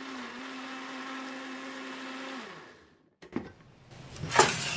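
Electric countertop blender running steadily as it purées frozen red chillies, garlic and onion in anchovy stock into kimchi seasoning paste. The motor winds down and stops about two and a half seconds in, and a couple of knocks follow as the plastic jar is handled.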